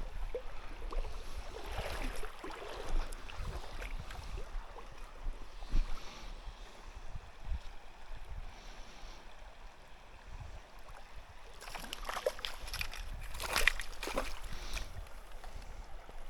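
Water splashing and sloshing, with some wind on the microphone; the splashing is loudest for a few seconds near the end.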